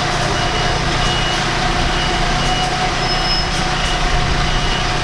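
City bus engine running with a steady low rumble and a constant hum, with a faint high beep repeating every half second or so.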